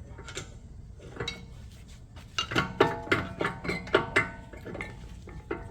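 Metal hand tools clinking and rattling against each other. About halfway through comes a dense flurry of sharp, ringing metallic clicks, which then thins to scattered clicks.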